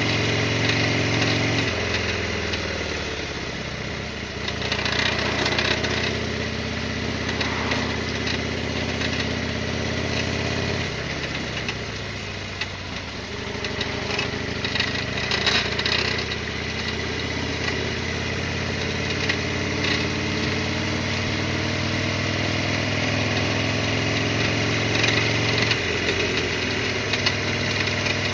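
Harley-Davidson Sportster XL1200R's air-cooled 1200 cc V-twin running on the move, its engine note shifting to a new pitch about two seconds in, again around eleven seconds, and near the end.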